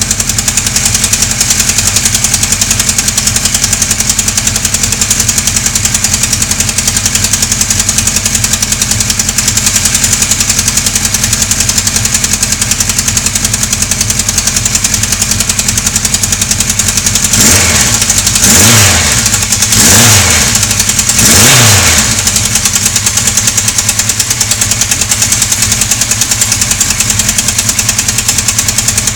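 Car engine idling with a fast, even ticking or knocking, the strange engine noise in question. About two-thirds of the way through it is revved three times in quick succession, the pitch rising and falling each time, then it settles back to idle.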